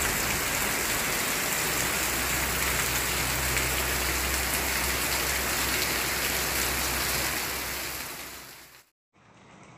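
Heavy rain falling steadily on garden plants and a gravel yard; it fades out about eight seconds in.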